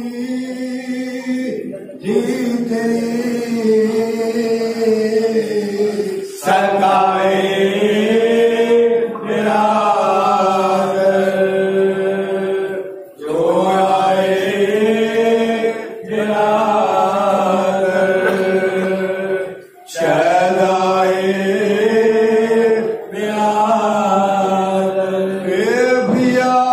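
A group of men chanting a noha, a Shia Muharram lament, into microphones, in long drawn-out sung lines with brief breaks between lines every few seconds.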